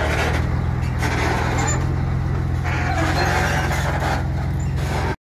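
Heavy diesel truck engine idling: a steady, even low hum.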